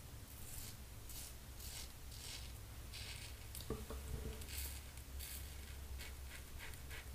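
Double-edge safety razor scraping through lathered stubble on the cheek in a series of short, scratchy strokes, about one or two a second, on an across-the-grain pass. A brief soft knock comes a little past halfway.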